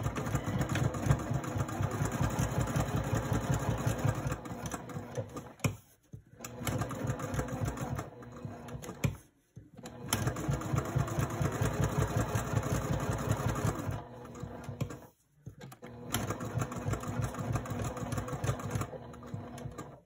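Domestic electric sewing machine stitching at a steady fast rate, topstitching around the edges of a fabric strap. It runs in four stretches separated by three short stops.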